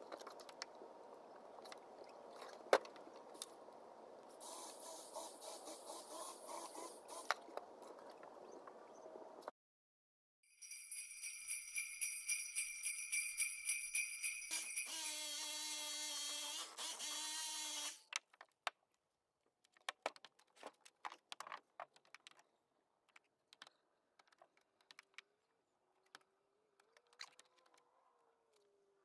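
Jingle bells shaken in a quick steady rhythm, about four shakes a second, for about seven seconds in the middle. Before them is a steady rushing background that cuts off suddenly. After them come only scattered faint clicks.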